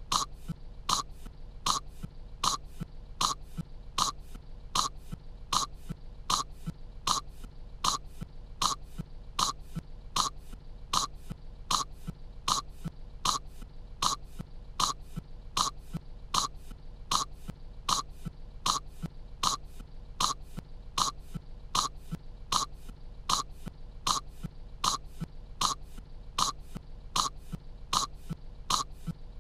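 A cartoon girl's short cough, looped so that it repeats evenly, a little more than once a second.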